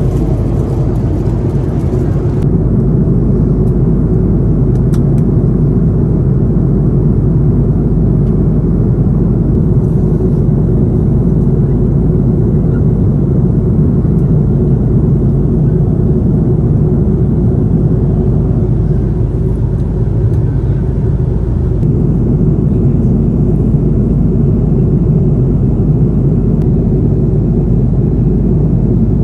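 Steady low rumble of airliner cabin noise inside an Airbus A330-200. It stays even throughout.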